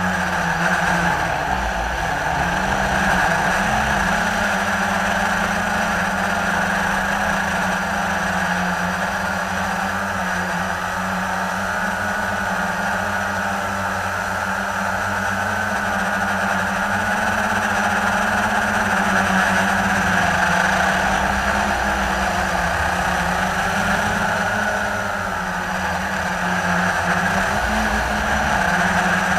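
Blade 350 QX3 quadcopter's four brushless motors and propellers humming steadily in flight, heard from its onboard camera, the pitch wavering slightly as the throttle changes.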